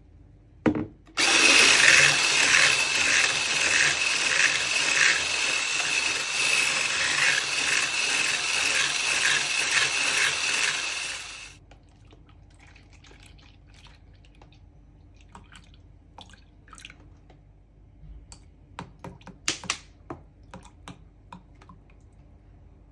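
Electric mixer beating eggs and sugar to a froth, running steadily with a high whine for about ten seconds before cutting off suddenly. Afterwards only faint taps and clicks.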